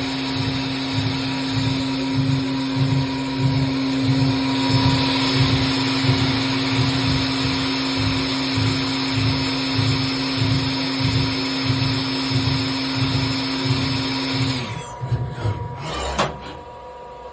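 Fanuc Robodrill Alpha T-14iA CNC drilling and milling center running its program: a steady spindle whine over a low pulsing about twice a second. It stops abruptly near the end and is followed by a single clunk.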